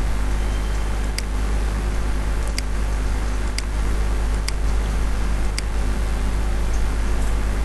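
Five sharp computer-mouse clicks, roughly one a second, over a steady low electrical hum and hiss from the recording setup.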